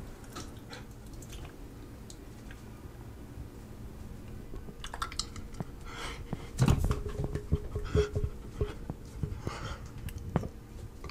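Quiet small room with handheld camera handling noise. From about five seconds in comes a run of small clicks, knocks and rustles, with a brief squeaky tone near eight seconds.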